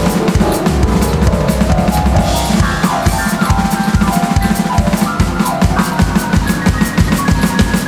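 Rapid, dense drumming on a Roland TD-17 electronic drum kit, with bass drum and snare hits, under synth lines that step and slide up and down in pitch.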